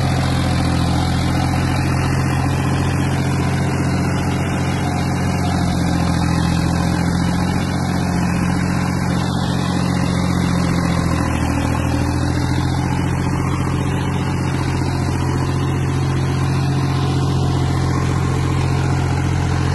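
John Deere 5050D tractor's three-cylinder diesel engine running steadily under load while it pulls a seven-tine cultivator through dry soil.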